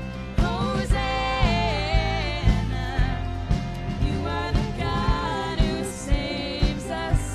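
Live worship band playing a song: voices singing over drum kit, bass, keyboard and guitars, with a steady beat of about two drum hits a second.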